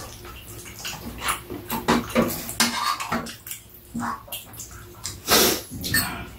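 Eating at a table: spoons and chopsticks clicking and scraping on bowls and a frying pan, with chewing and slurping. The loudest sound is a longer rushing noise about five seconds in.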